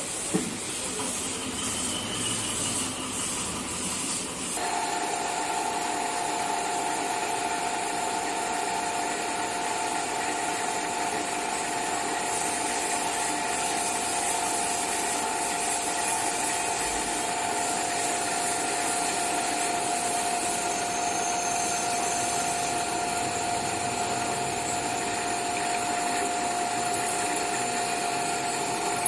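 Drill press running, its bit drilling into a square metal block, with a steady hiss; about four seconds in a steady whine starts and holds.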